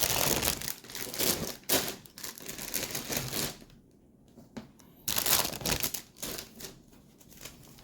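Plastic bags of model-kit parts crinkling and rustling as they are handled and packed back into the box, in two spells with a lull of about a second and a half between them.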